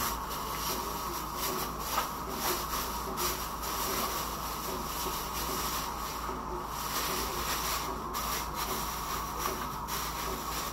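Steady hiss from a pot of soup cooking on a stovetop burner, with faint irregular ticks.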